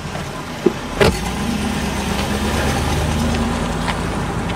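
A short thud about a second in, then a car engine running steadily with a low hum.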